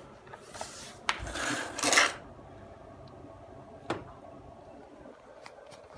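Hard plastic handling noises from a Bosch cordless stick vacuum being picked up and turned over: a few clicks, a short scraping rub about a second in that peaks near two seconds, and a single knock near four seconds. The motor is not running.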